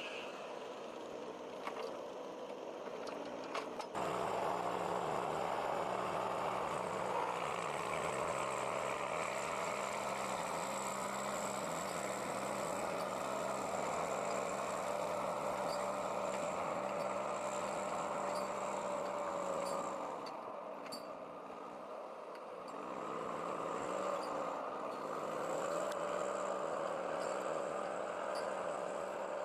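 Heavy logging vehicle's engine running steadily. It gets suddenly louder about four seconds in and eases off briefly past the twenty-second mark.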